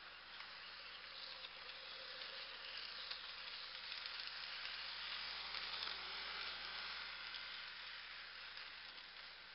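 Whir of an HO-scale Kato SD80MAC model locomotive's electric motor, gears and wheels running on the track, with no sound decoder fitted, so only the mechanism is heard. It grows louder as the locomotive approaches, peaks a little past halfway, then fades as it passes, with a few faint ticks near the middle.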